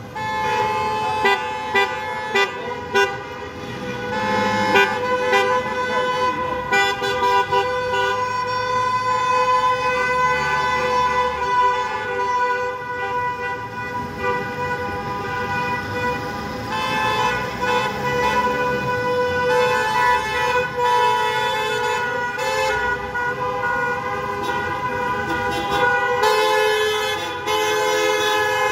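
A convoy of taxis honking in protest: many car horns sounding together in a steady, overlapping din, with a run of short toots in the first few seconds.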